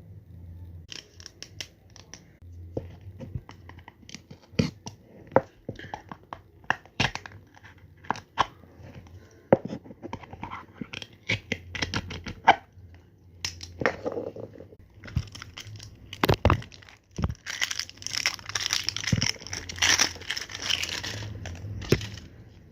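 Packaging being torn open and crinkled by hand, with many sharp rustles and snaps, and a longer stretch of steady crinkling near the end.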